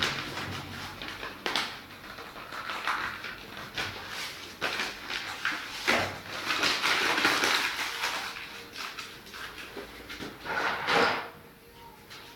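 A sheet of paper rustling and scraping as it is pressed and rubbed over wet spray paint on a board, in uneven bursts, the longest about six to eight seconds in and a short loud one near the end.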